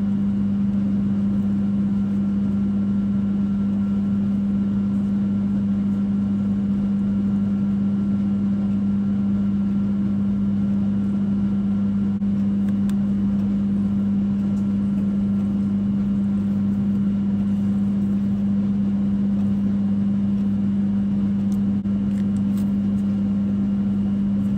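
Air-conditioning unit running with a loud, steady low hum. A few light clicks come near the end as a syringe and vial are handled.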